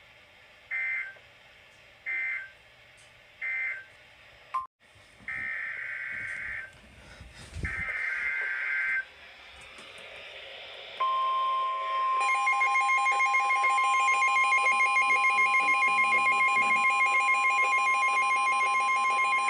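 NOAA Weather Radio alert data and alarm tones. Three short end-of-message data bursts close the severe thunderstorm warning. Two longer SAME header data bursts follow for the tornado warning, then about 11 s in the steady 1050 Hz warning alarm tone starts. About a second later a second electronic alarm joins it, beeping in quick even pulses.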